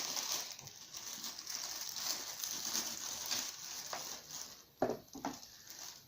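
Plastic packaging rustling and crinkling as an SSD mounting bracket is unwrapped and handled, with two short dull sounds near the end.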